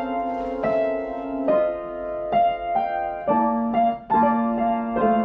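Background music: a slow, gentle piano melody, one note after another, each struck and left to fade.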